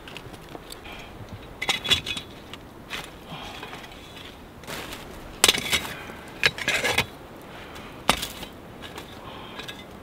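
A wooden spit and its forked stick supports being handled as a spitted whole turkey is set and adjusted over a fire pit. Several sharp knocks and clatters come with scraping handling noise in between, and the loudest knocks fall a little past the middle.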